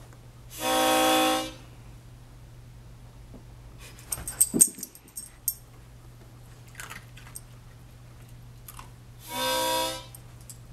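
Harmonica blown on a low note, held for about a second, twice, several seconds apart: the conditioned cue for the puppy to come forward and sit. In between, a short burst of metallic jingling and clicks.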